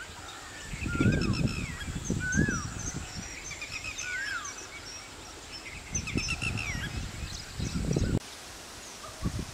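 Several wild birds calling: a mix of short high chirps and repeated falling whistled notes, with intermittent low rumbles underneath. The sound drops abruptly about eight seconds in.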